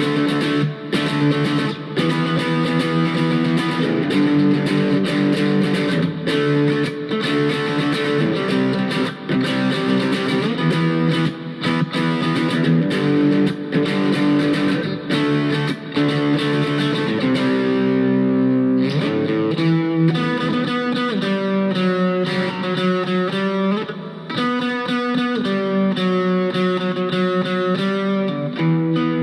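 Electric guitar played through a Blackstar Superfly battery-powered amp on its distortion channel with the gain turned high and reverb engaged. Fast strummed chords for most of it, then a passage of separate held notes in the last third.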